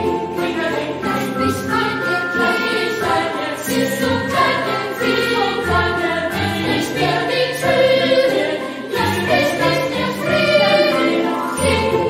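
Background music: a choir singing held notes over instruments.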